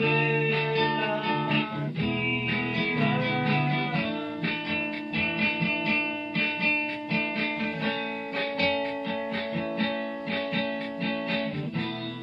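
Guitar-led song demo: held chords, then steady strumming from about four seconds in.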